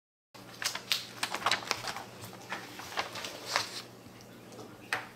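Paper being handled and crinkled in a child's hands: a quick, irregular string of crackles and rustles, with one last crackle near the end.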